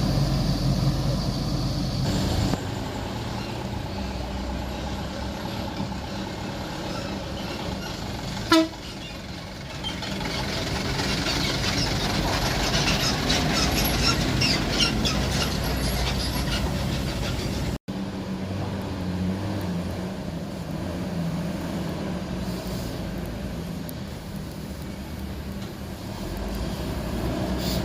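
Bus engine running with a steady low rumble, and one short loud horn toot about eight and a half seconds in.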